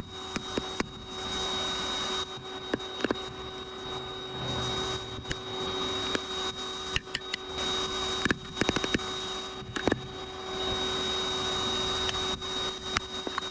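Electric blower on a blacksmith's coal forge running with a steady whine, with scattered light clicks and knocks.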